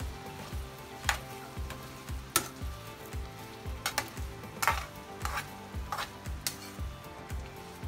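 Spatula stirring cubed potatoes in a sizzling frying pan, with several sharp scrapes and clinks against the pan. Background music with a steady beat plays under it.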